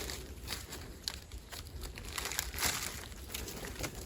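Irregular rustling and crackling of leaf litter and twigs on a forest floor, with soft scattered clicks.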